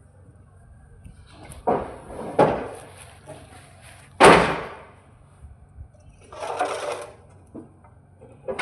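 A few separate sharp knocks and thuds, the loudest about four seconds in, with a short rushing noise near the seventh second.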